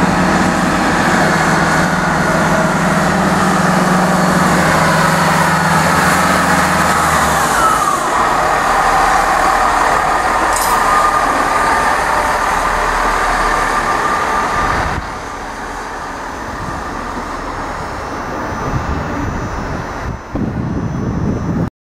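Diesel train running through a station: a steady low engine drone for the first seven seconds or so, a falling whine about eight seconds in, then a rumble that drops in level about fifteen seconds in.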